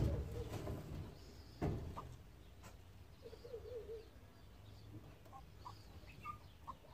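A broody Muscovy duck hen's soft calls, faint: a short wavering trill about halfway through and a few brief chirps near the end. Two knocks come in the first two seconds.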